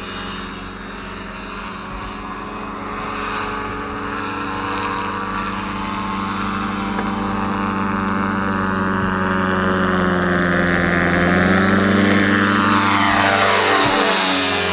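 Motorboat engine running steadily and slowly growing louder, with its pitch sweeping down near the end.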